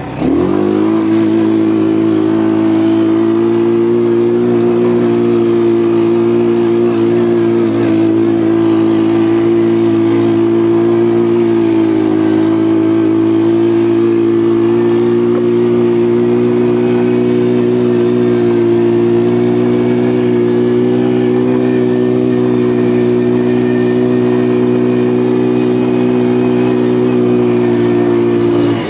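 ATV engine running under throttle while the quad is ridden, the revs rising in the first moment and then held nearly steady at a high, even pitch.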